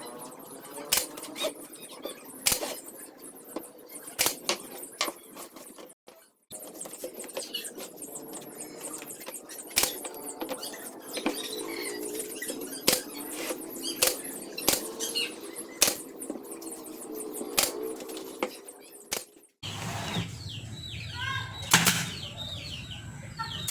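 Workshop handling noises from building a table saw fence: a string of sharp clicks and knocks mixed with squeaks and scraping, broken by two brief cuts. After the second cut, a low steady hum runs underneath.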